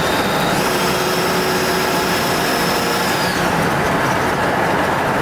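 Steady cabin noise of a 1978 Mercury Colony Park station wagon cruising at highway speed: tyre, wind and engine sound from its 460 big-block V8. A faint high whine runs for a few seconds, starting about half a second in.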